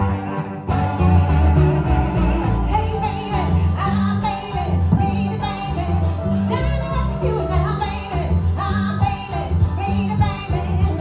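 A string band playing: a woman singing over upright double bass, acoustic guitar and mandolin. The voice comes in about two and a half seconds in, over a strong bass line.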